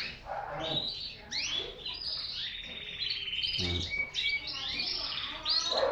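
Many caged canaries singing at once: overlapping chirps, warbles and rolling trills, with one long rapid trill about two and a half seconds in.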